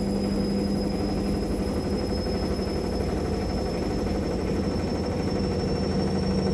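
Hotpoint Ultima washing machine on its spin cycle, its universal brushed motor running with a steady hum and rattling vibration, and a high motor whine that climbs slowly as the drum speeds up. The machine shakes heavily on spin.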